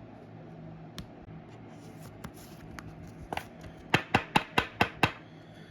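Hands handling trading cards and their packaging: a few light isolated clicks, then a quick run of about seven sharp clicks or snaps.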